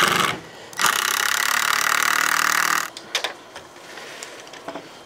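Cordless drill driving a screw into a pine board: a short burst, then the motor running steadily for about two seconds before stopping. A few knocks of wooden boards being handled follow.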